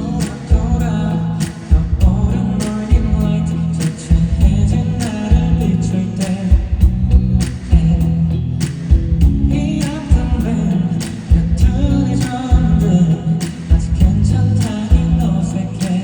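A male singer performing a pop ballad live, his voice over a band accompaniment with regular drum hits and heavy bass.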